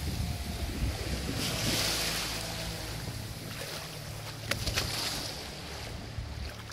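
Small waves washing up the sand at the shoreline, swelling in a hiss about two seconds in and again about five seconds in, with wind rumbling on the microphone. A couple of brief sharp ticks come about four and a half seconds in.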